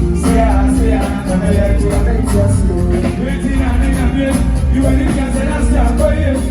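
Live band playing an instrumental groove at sound check, with a steady bass line, regular drum hits and melodic lines over them.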